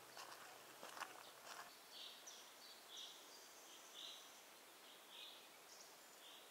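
Faint forest ambience: a few footsteps on a dirt track in the first second and a half, then a faint short high-pitched call repeated roughly once a second.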